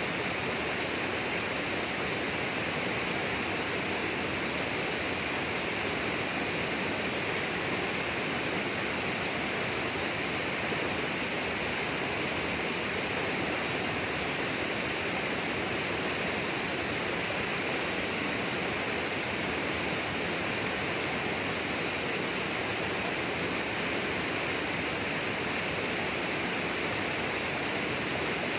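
Steady, unbroken rush of flowing water, as from a rainforest stream or small waterfall.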